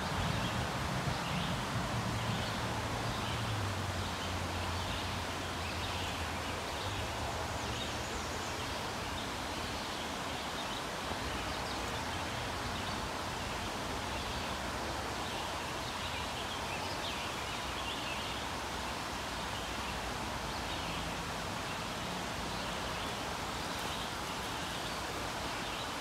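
Outdoor ambience: a steady hiss of background noise with faint, scattered high bird chirps. A low hum underneath fades out in the first several seconds.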